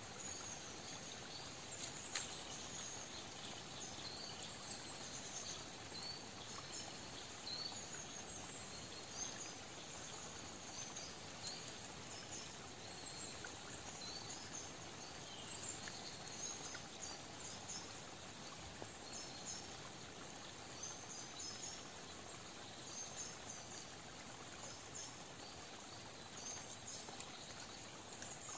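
Outdoor forest ambience: a steady, gentle rush of a small stream, with short high chirps scattered throughout.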